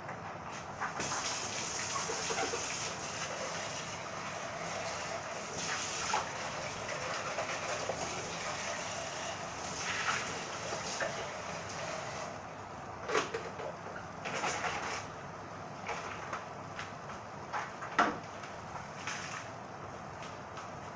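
A steady rush like running water for about ten seconds, then a few sharp knocks and clatters.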